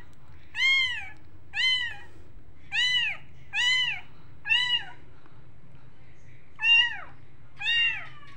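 A very young kitten, about three to four weeks old, meowing over and over in high, arched cries, seven in all with a pause of about two seconds near the middle: a kitten separated from its mother, calling for her.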